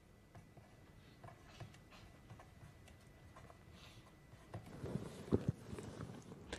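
Marker pen writing on paper: faint short scratching strokes, then a few louder soft knocks about halfway through as the writing finishes.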